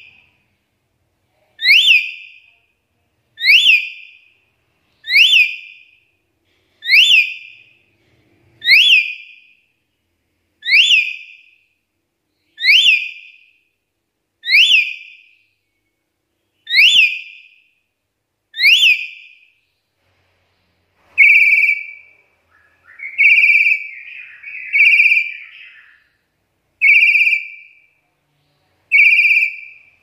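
Black-capped lory calling: loud, sharp whistles that sweep upward, about one every two seconds. About two-thirds of the way through they change to shorter whistles held on one pitch, with a rougher chattering note between two of them.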